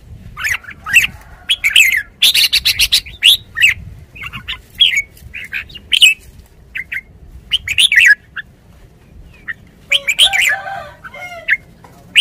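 Red-whiskered bulbul calling in short bursts of quick chirping notes and brief phrases, with pauses between them and a fast run of notes about two seconds in.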